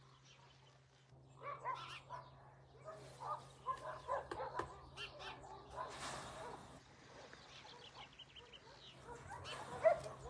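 Faint dogs barking and yipping on and off, with a few quick bird chirps among them.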